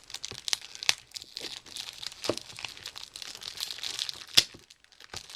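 Packaging of a new puzzle crinkling and tearing as it is pried open by hand, with irregular crackles and a sharp click about four seconds in.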